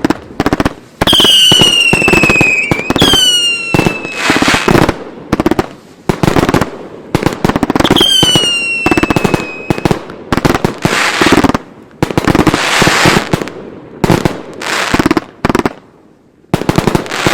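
Fans 100-shot XL aerial finale set firing: a rapid run of loud booms with crackling between them. Three whistles that fall slightly in pitch sound about a second in, at about three seconds and at about eight seconds.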